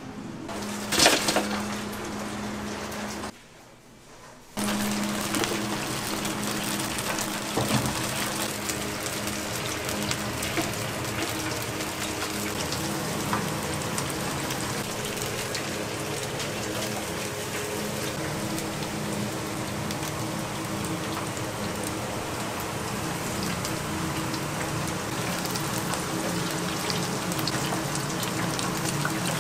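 Running, splashing water over a steady low hum. There is a sharp knock about a second in, and the sound drops out for about a second near the three-second mark before carrying on.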